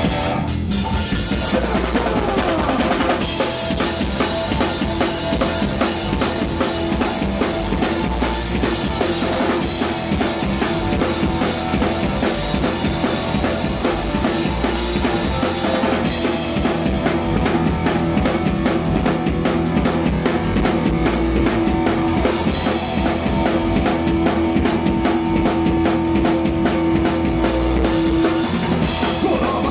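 Live rock band playing loudly: a drum kit with bass drum and snare driving a steady beat under electric bass and electric guitar, with a long held note in the second half.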